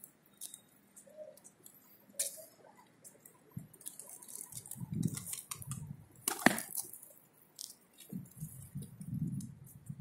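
Feral pigeons cooing low now and then, with scattered sharp taps and clicks; the loudest tap comes about six and a half seconds in.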